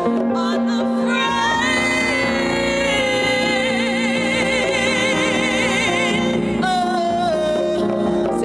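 A woman singing a wordless run that climbs step by step to a long high note with wide vibrato, then drops to lower phrases. She is backed by a live acoustic band with guitar and a hand drum.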